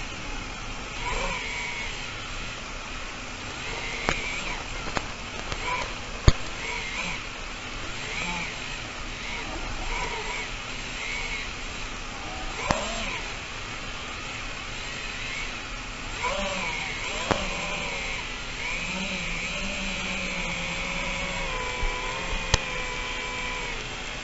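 Small FPV quadcopter motors and propellers whining, the pitch gliding up and down with the throttle over a steady rush of noise, with a few sharp clicks.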